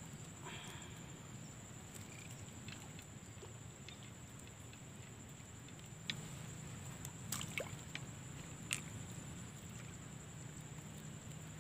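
Faint outdoor ambience with a steady high-pitched insect drone, and a few light clicks of fishing tackle being handled between about six and nine seconds in.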